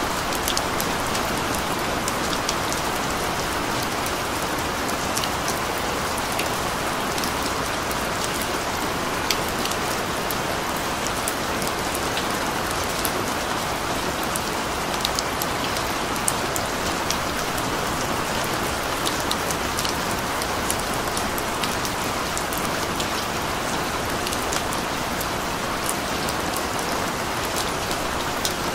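Steady rain falling: a dense, even hiss with many small drop ticks scattered through it.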